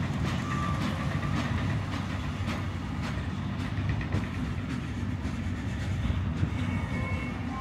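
Freight train wagons rolling past, a steady low rumble of wheels on rail with repeated clickety-clack as the wheels cross rail joints.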